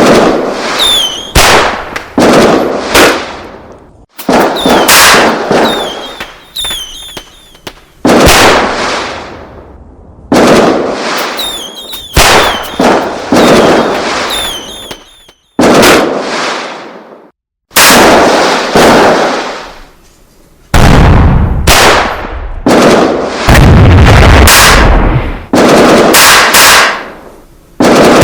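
A string of loud, sudden bangs, one every second or two and sometimes two close together, each dying away over a second or so. Short high whistles fall in pitch between some of the early bangs, and about three quarters of the way through a deeper, heavier boom rumbles on for a few seconds.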